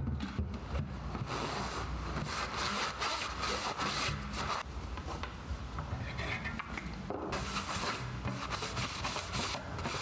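Hand and rag rubbing and wiping over a steel saw blade, spreading light machine oil, in two stretches of quick scratchy strokes: from about a second in to about the middle, and again near the end.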